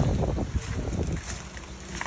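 Wind buffeting the microphone outdoors: a low noise, louder in the first second and easing toward the end.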